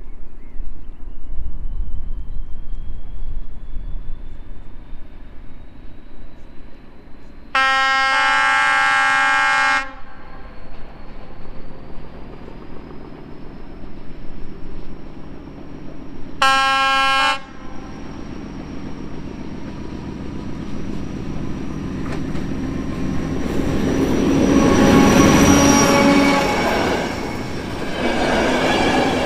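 Czech ČKD diesel locomotive running with a thin whine that slowly rises in pitch, sounding its horn twice: a long blast of about two seconds, then a shorter one about nine seconds later. The engine and wheel noise then swells to its loudest as the train passes close, near the end.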